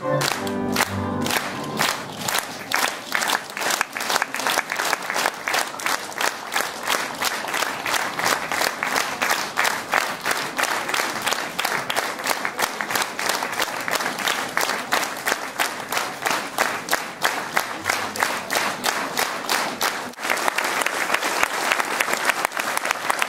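The last notes of music, then a large audience clapping in unison in a steady rhythm. Near the end the rhythm breaks up into looser applause.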